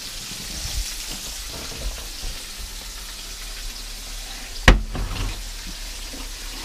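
Flour-dredged chicken pieces frying in a pan of hot oil, a steady sizzle. A single sharp knock, the loudest sound, comes about two-thirds of the way through.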